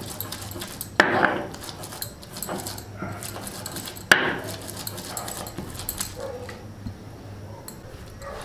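A stone roller grinding ginger and garlic on a flat grinding stone: repeated scraping and knocking of stone on stone. Two much louder sharp sounds come about a second in and again about four seconds in.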